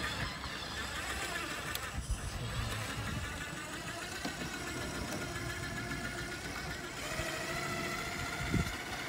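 RC4WD Trail Finder 2 scale rock crawler's electric motor and gearbox whining as it crawls over rock ledges, the whine stronger in the second half, with a single knock near the end.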